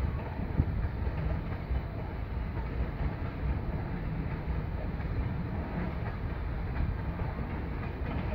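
Freight train of tank wagons rolling past, a steady rumble of wheels on the rails.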